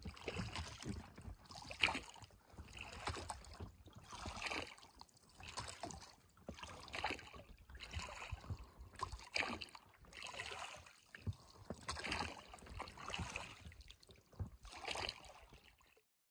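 Steady rhythmic strokes of a blade dipping and pulling through river water as a small boat is moved by hand, about one stroke every second and a quarter, stopping abruptly near the end.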